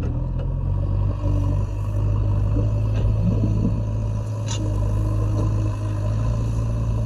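JCB 3DX backhoe loader's diesel engine running steadily at an even, low drone.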